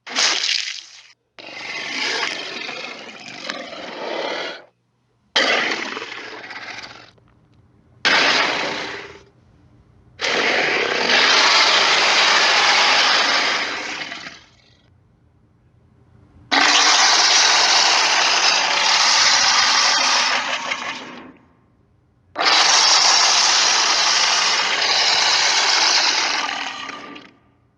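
A series of about seven allosaurus roar sound effects with short pauses between them, the first few brief and the last three long, about four to five seconds each.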